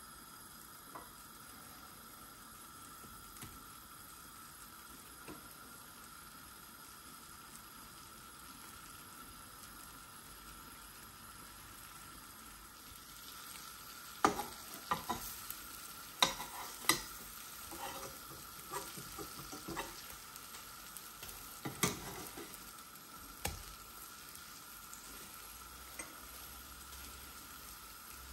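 Egg-dipped bread slices frying in butter in a nonstick pan: a soft, steady sizzle. About halfway through, a wooden spatula knocks and scrapes against the pan a dozen or so times as the slices are moved and turned, then the sizzle carries on alone.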